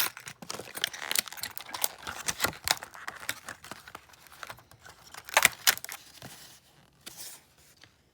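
Retail packaging of a deadbolt lock set being handled: a rapid run of crackles and clicks from plastic and card, with rattles from the metal parts and keys inside, dying away about six and a half seconds in.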